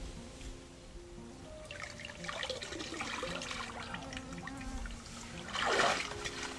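Water splashing and trickling under background music with sustained notes, with a louder splash near the end.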